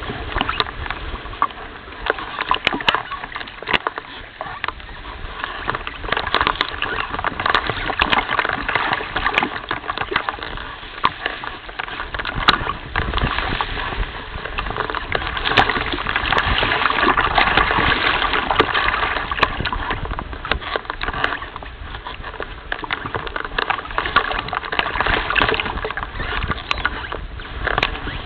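Choppy water lapping and splashing against a nest surrounded by open water, as an uneven wash that swells louder around the middle, with scattered small clicks.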